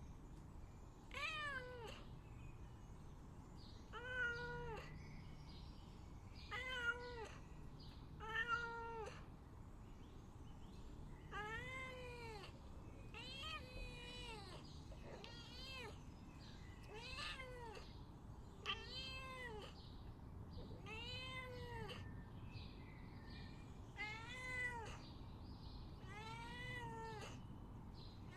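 A domestic cat meowing over and over, about a dozen drawn-out meows each rising then falling in pitch, a couple of seconds apart: a cat asking to be let out.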